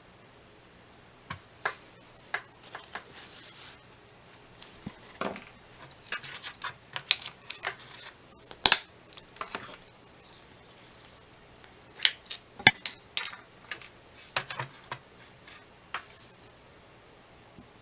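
Irregular clicks, taps and short scrapes of small hard objects being handled and set down on a table during craft work, busiest in the middle and dying away near the end.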